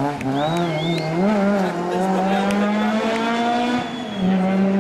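Rally car engine revving unevenly as the car slides through a tight turn, with a brief tyre squeal, then pulling away with its pitch climbing steadily and a short break near the end.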